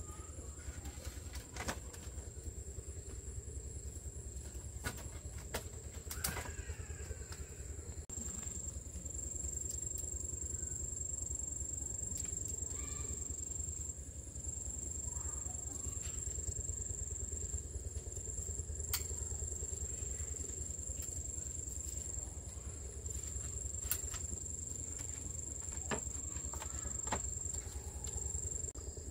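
A steady high-pitched insect drone, like crickets, over a low rumble, with scattered sharp clicks and knocks.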